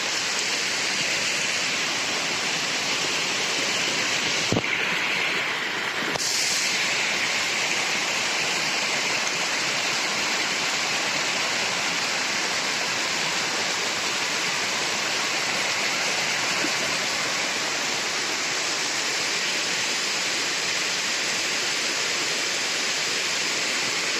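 Waterfall rushing steadily, with a single knock about four and a half seconds in.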